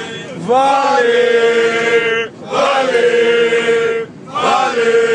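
Football supporters chanting together in unison, a group of men's voices singing long held notes in three phrases with two short breathing gaps.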